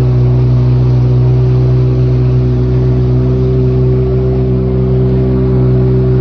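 Jet ski engine running at a steady throttle while cruising, a constant unchanging hum over a steady rush of water and wind.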